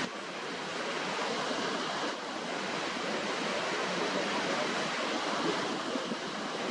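Waterfall: falling water rushing in a steady, even roar, dipping slightly in level about two seconds in.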